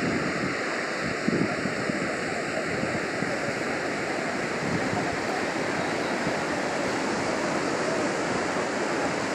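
Steady rush of sea surf washing up a flat sandy beach, mixed with wind on the microphone, with a brief thump about a second in.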